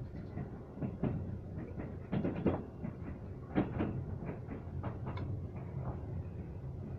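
A moving train heard from inside the car: a steady low rumble and hum of the running gear, with irregular clacks and knocks from the wheels over rail joints, busiest in the middle.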